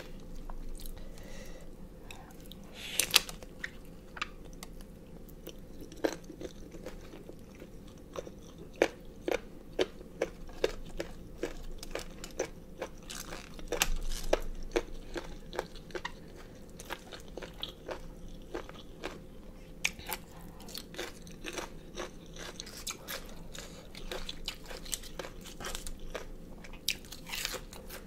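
Close-miked chewing of crunchy pig ear cartilage: irregular crunches and mouth clicks, loud at times.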